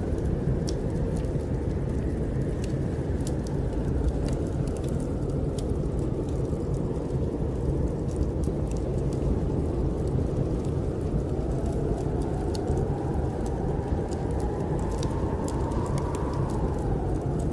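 Snowstorm wind blowing steadily with a deep rumble, over the faint crackle and small pops of a wood fire. In the second half a whistling howl rises in pitch, then falls away near the end.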